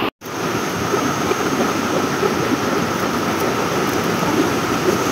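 Steady rushing noise of a fast stream flowing over rocks, with one very short dropout near the start.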